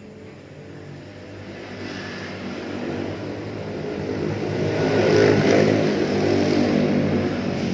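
Engine of a passing motor vehicle, growing louder to a peak about five seconds in, then fading away.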